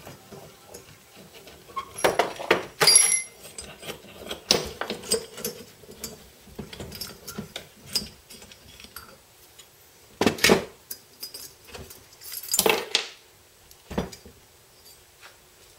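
Irregular metal clinks and clanks of a valve spring compressor being worked on an aluminium motorcycle cylinder head and set down on a workbench, with valve springs and small parts rattling as a valve is taken apart. The loudest clanks come about two seconds in and again about ten and thirteen seconds in.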